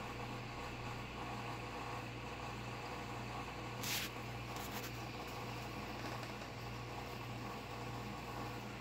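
Steady low hum with a background hiss from a running aquarium pump. A short burst of hiss comes about four seconds in.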